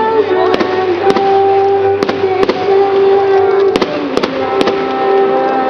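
Fireworks display: sharp bangs at irregular intervals, a few each second, over steady, sustained musical notes.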